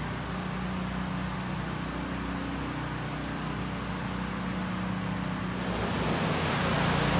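Steady room tone: an even hiss with a few faint steady low hums, the hiss growing louder and brighter about six seconds in.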